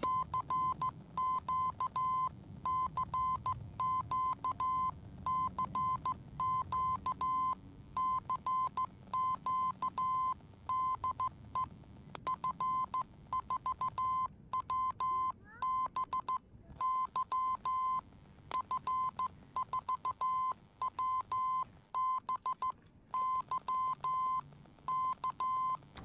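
Morse code sent by hand on a straight key, heard as the FOXX-3 QRP transceiver's sidetone: a single steady beep switching on and off in uneven dots and dashes while the 20-metre crystal-controlled rig transmits.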